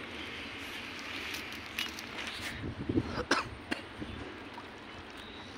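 Outdoor ambience of wind and water at a lake's edge: a steady hiss with a few short sharp knocks or splashes, the loudest a little over three seconds in.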